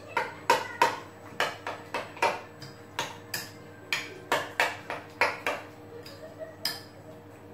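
A spoon clinking against a glass bowl while stirring a mixture, with sharp, ringing clinks about three a second that grow a little softer near the end.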